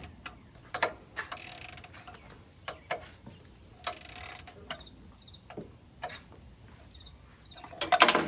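Scattered clicks and short scrapes of a small metal Allen wrench working a screw on the bulldozer's metal engine parts. Near the end comes a loud metallic clatter with a ringing tail as the wrench is dropped down into the machine.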